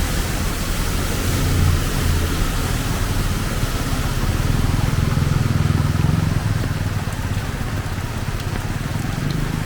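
Heavy rain falling with a steady hiss, with a low vehicle engine rumble that swells as it passes about halfway through.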